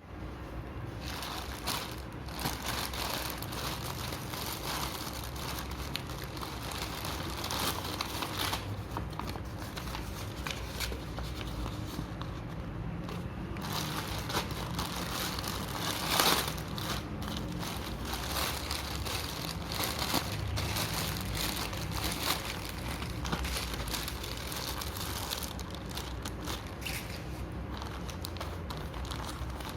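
Packaging being handled and opened, crinkling and rustling irregularly throughout, with a louder crackle about sixteen seconds in.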